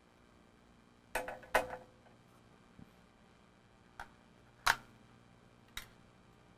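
Handheld CB walkie-talkie being taken apart by hand: a few sharp clicks and knocks of its parts and tools being handled, two close together about a second in, then single ones spread out, the loudest just under five seconds in.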